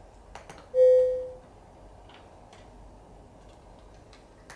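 A single clear, bell-like ding about a second in that fades out within half a second, with a few faint clicks of cats crunching dry kibble.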